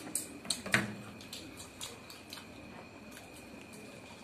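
Close-up eating sounds: fried puri being torn by hand and chewed, with a run of short wet mouth clicks and smacks, loudest in the first second. A faint steady high tone runs underneath.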